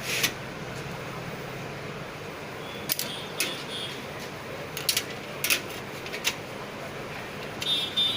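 Scattered clicks and light knocks of desktop computer parts being handled and fitted together during reassembly, over a steady background hum.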